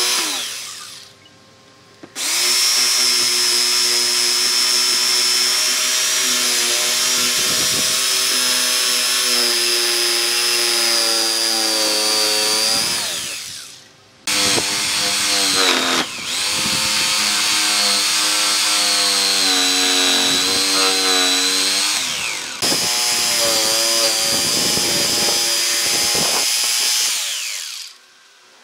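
Corded Makita jigsaw cutting into a thick wooden board, its motor whining steadily in three runs of several seconds each. Each time the trigger is released the whine slides down in pitch as the motor winds down, and it is also winding down at the very start.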